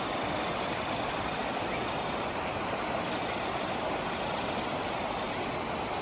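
Steady, even rushing hiss of outdoor night ambience, with faint thin high-pitched steady tones above it.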